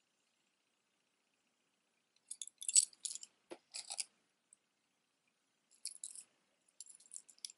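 Metal costume jewelry clinking: a chain necklace hung with metal charms and a rhinestone heart jingles in short bursts as it is handled, with one duller knock among them. Before the first jingle there are about two seconds of near silence.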